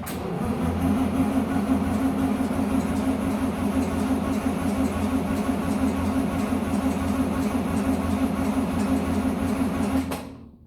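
Farm machine's engine running steadily with a strong low hum. It comes in at full level at once and cuts off near the end.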